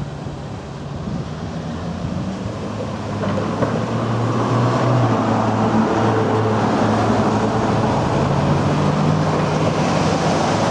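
Road traffic over a level crossing: a vehicle engine running with a low steady hum, growing louder over the first few seconds and then holding.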